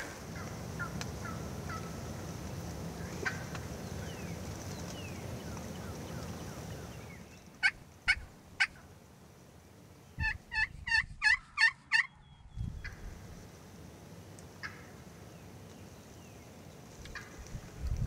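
Wild turkey gobbler gobbling: three sharp, loud notes, then about two seconds later a rapid rattling run of notes.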